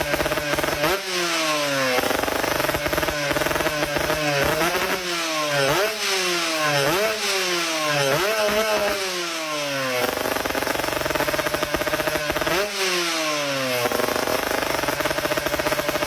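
A small engine idling with a steady hum and revved in quick repeated blips. Each blip jumps up and falls back in pitch, many in a row through the first ten seconds, and two or three more a few seconds later.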